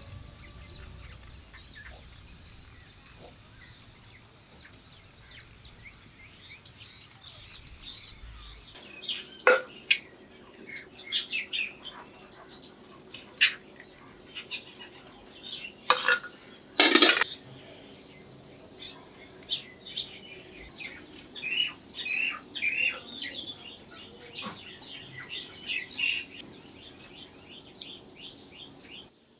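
Small birds chirping repeatedly, most densely in the second half. Several sharp clinks and scrapes in the first half come from a wooden serving spoon against black clay pots and a steel plate as rice is served.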